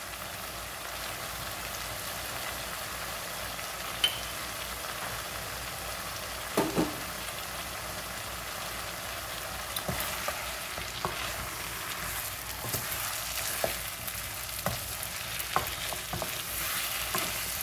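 Spiced chicken pieces frying in oil in a pan with a steady sizzle, stirred with a spatula that knocks and scrapes against the pan now and then, more often in the second half.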